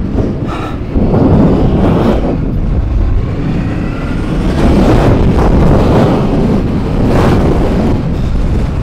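Riding sound from a Honda CB500X on a wet gravel track: heavy wind rumble on the microphone over the bike's parallel-twin engine and tyre noise. It gets louder about a second in.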